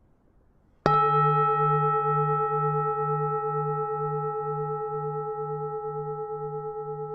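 Vietnamese Buddhist temple bell struck once, then ringing on with a slow decay. Its lowest tone is a hum that pulses about twice a second.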